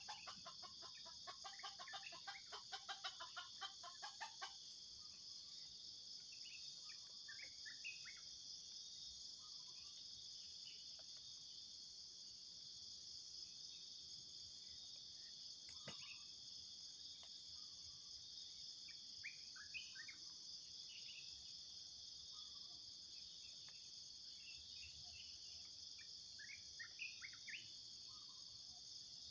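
Faint steady drone of insects, with a rapid run of clucks from a junglefowl over the first four seconds or so, then scattered short bird chirps.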